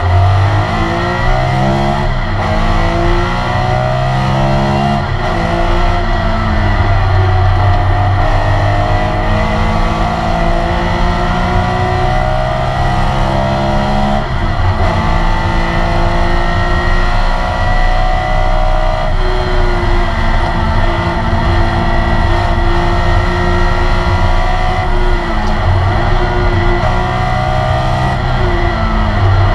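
Porsche 911 RSR's air-cooled flat-six racing engine, heard from inside the cabin at full race pace. The pitch climbs as it pulls through the gears and drops at each gear change or lift, with one long pull in the middle.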